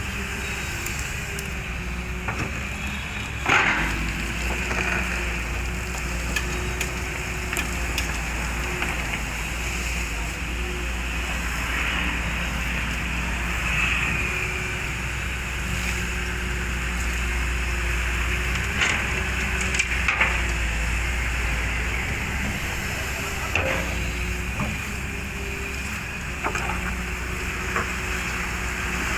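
Heavy construction machinery's diesel engine running steadily, with scattered sharp knocks and cracks, the loudest about three and a half seconds in.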